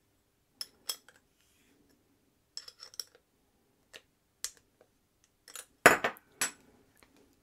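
Light metallic clicks and clinks of a steel pin spanner working the spindle's threaded clamp ring as it is tightened to take out the bearing end float. About six seconds in there is a louder clatter of two or three sharp knocks as the spanner is set down on the bench.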